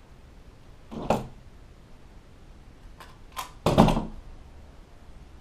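A stiff vinyl upholstery panel being handled and folded over: a short crackling rustle about a second in, then a few light clicks and a longer, louder crackle of the vinyl about three and a half seconds in.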